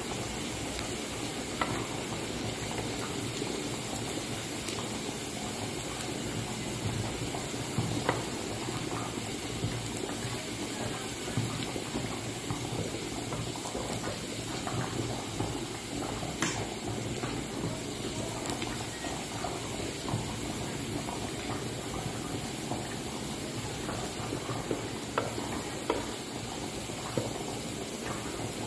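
Minced garlic sizzling steadily in hot oil in a small frying pan as it fries toward golden brown, stirred with a wooden spatula that knocks against the pan a few times.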